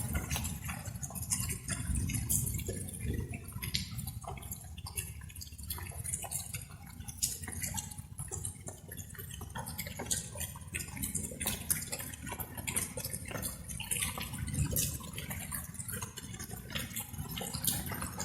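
Light rain: many sharp, irregular drops dripping close by, over a steady low rumble.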